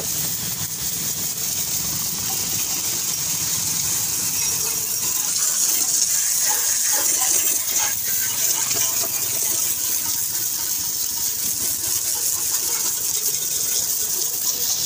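High-pressure water jet blasting the steel body of a tractor trailer to strip off old paint: a steady, loud hiss that starts suddenly and runs unbroken, with a low hum beneath it.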